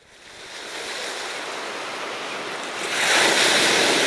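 Ocean surf washing onto a beach, a steady rush of water that fades in and swells louder about three seconds in.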